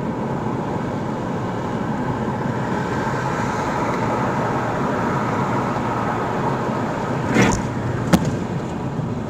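Steady road noise of a car cruising at motorway speed, tyres on asphalt and engine, heard from inside the cabin. About seven seconds in there is a brief louder thump, and a sharp click follows soon after.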